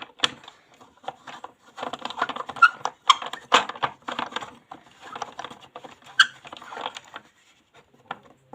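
Small plastic toy pieces clicking and rattling as they are handled and fitted back into place, a dense run of light clicks and scrapes that dies away near the end.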